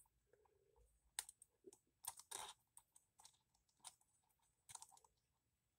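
Faint, irregular small clicks and taps of small metal parts on a model pneumatic piston engine being fitted together by hand, as the valve piston is slid into place.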